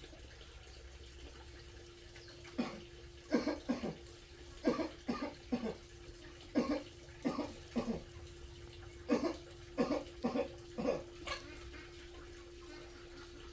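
A sick man coughing over and over in short fits, about a dozen coughs in bouts of one to three: a persistent illness cough.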